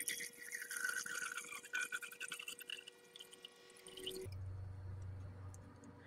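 Liquid poured from a small glass beaker into a larger glass beaker, a splashing trickle into the liquid already there, stopping about four seconds in. After it stops a low steady hum is heard.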